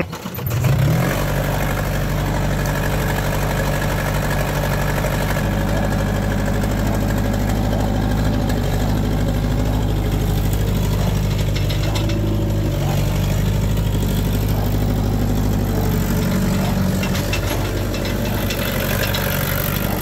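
Kubota V2003 four-cylinder diesel in a New Holland L213 skid steer starting up, its speed climbing within the first second, then running steadily with small changes in pitch as the machine is operated.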